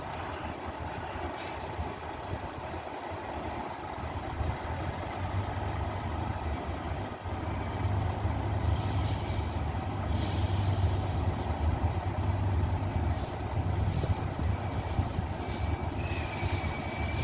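Diesel engine of a race-car transporter prime mover running as the truck pulls away slowly, its low rumble growing louder about halfway through. Two sharp air hisses come a little past halfway, typical of air brakes releasing.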